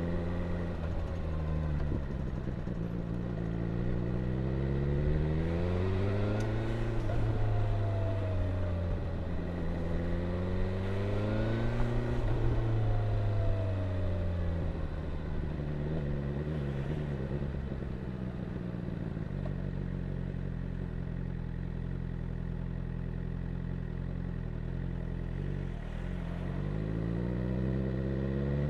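BMW S1000R's inline-four engine and exhaust under riding load. The revs climb twice, peaking about seven and twelve seconds in and easing back down each time, then hold low and steady for a long stretch before climbing again near the end.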